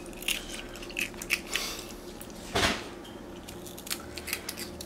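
Capuchin monkey biting and chewing crunchy corn puff cereal: irregular crisp crunches, with one louder, longer crunching noise about two and a half seconds in.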